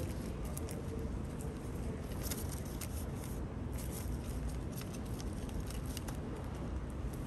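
Underground subway platform ambience: a steady low rumble of the station, with scattered light clicks and taps of footsteps on the tiled floor.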